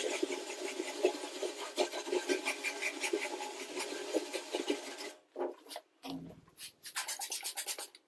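Rapid hand scrubbing on a toolbox's fire-stained metal, a dense rasping rub that stops about five seconds in. Near the end a regular percussive beat of background music starts.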